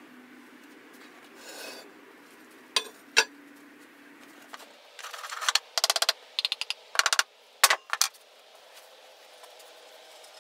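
Wooden sand-casting flask knocking and scraping against a plastic bucket. There are two sharp knocks about three seconds in, then a quick run of knocks and rattles between about five and eight seconds.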